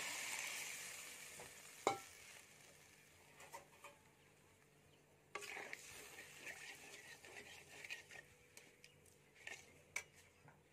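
Water hitting hot masala in a kadhai sizzles, dying away over the first couple of seconds, with a single knock soon after. From about halfway on, a spoon stirs and scrapes through the watery gravy with small irregular clinks.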